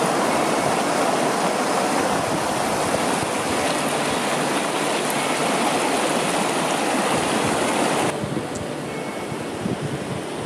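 Mountain stream rushing and splashing over rocks close by, a loud steady rush that drops sharply to a much quieter hiss about eight seconds in.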